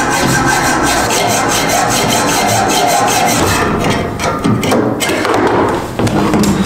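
Hacksaw with a dull blade missing teeth, cutting through an old steel radiator pipe in fast, rasping strokes. The sawing stops about three and a half seconds in, followed by a few knocks and clunks as the cut pipe comes free and the saw is set down.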